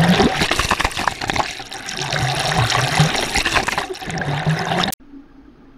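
Water splashing and churning around an underwater camera near the surface, full of bubbling crackle, with a low hum that comes and goes. It cuts off suddenly about five seconds in to a faint, even underwater hiss.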